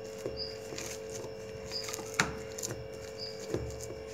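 Hands kneading a damp dough of soaked sago pearls and mashed potato in a steel bowl: faint squishing with a few soft knocks, over a steady hum.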